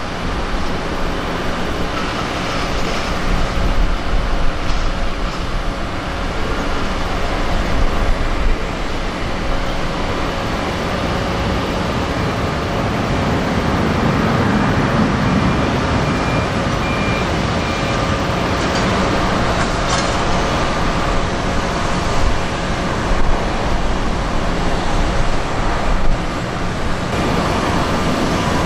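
Airbus A340-300's four CFM56 turbofan engines running as the jet moves along the runway: a steady, loud jet noise with a low rumble and a faint even whine over it.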